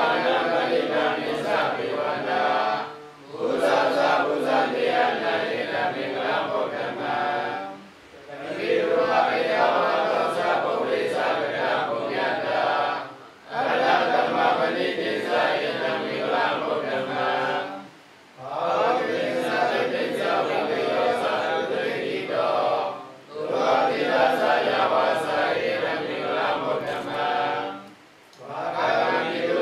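A group of Buddhist monks chanting in unison, in even phrases about five seconds long, each separated by a brief breath pause.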